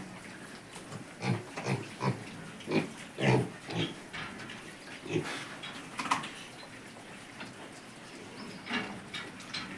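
Weaned piglets grunting in short, irregular bursts, with one sharper, higher call about six seconds in.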